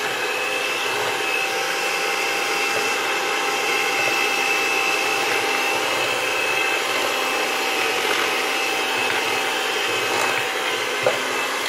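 Electric hand mixer running steadily with a constant whir, its beaters churning butter, sugar and egg in a ceramic bowl until combined.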